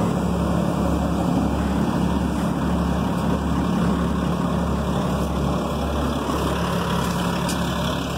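Articulating dump truck's diesel engine idling steadily, with a low throb pulsing about once a second.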